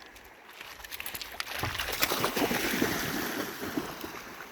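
A dog splashing through river water after a thrown stick: a rush of many small splashes that builds about a second in and fades near the end.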